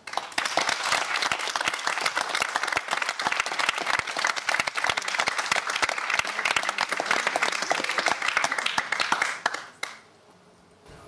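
Audience applauding: a dense, steady patter of many hands clapping that fades out about ten seconds in.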